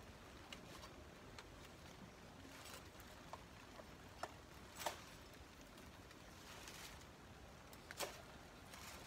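Near silence: a faint outdoor background broken by a handful of short clicks and ticks, the loudest about five and eight seconds in.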